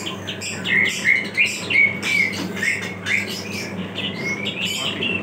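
A small songbird chirping over and over in short, irregular notes that slide up and down. Under it runs the steady low hum of a mini tempe slicing machine's electric motor, left running on its automatic feed.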